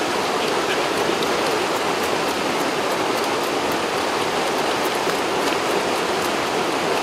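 Steady rush of a small waterfall and stream pouring over rocks.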